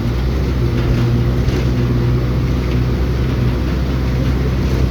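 Vehicle engine running at a steady speed with road and wind noise, as heard from inside a moving vehicle.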